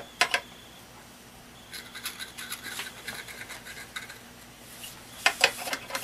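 Small metal wax stylus scratching and tapping against a gourd round as melted crayon wax is dabbed on. There are a few sharp clicks near the start, faint scratchy scraping in the middle, and a louder cluster of clicks about five seconds in.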